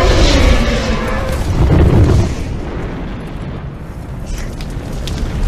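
Film sound effect of a fiery explosion: a deep boom and rumble that dies down after about two seconds, with a few faint crackles near the end.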